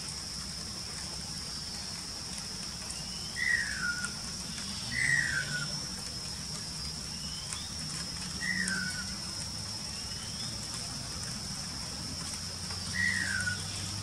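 Greater racket-tailed drongo calling: four loud, short whistled notes that slide downward, spaced a few seconds apart, with fainter short rising notes between them. A steady high-pitched drone runs underneath.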